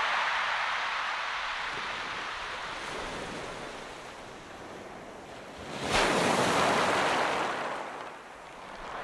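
Sea waves breaking and washing in. One wash fades away, then a wave breaks sharply about six seconds in and surges before ebbing, and another swell rises near the end.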